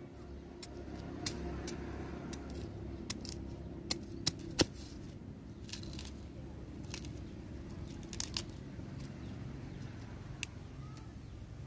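Fresh bamboo shoots being cut with a cleaver and their husks peeled off by hand: scattered sharp clicks and knocks over light crackling and tearing, with three louder knocks about four seconds in.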